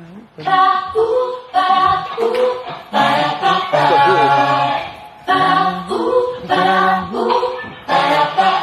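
A group of young singers singing a song together a cappella, in sung phrases with short breaks between them.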